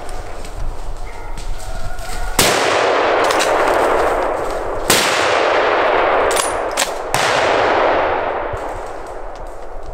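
Hunting rifle fired three times, about two and a half seconds apart, each shot followed by a long echo dying away through the forest. A few sharp clicks come between the second and third shots.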